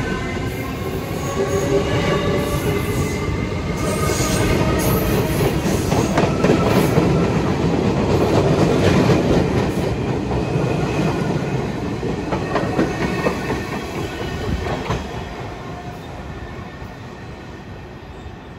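New York City subway train running through the station, its wheels clicking over rail joints. A whine is heard in the first few seconds; the sound grows loudest about halfway, then fades away toward the end.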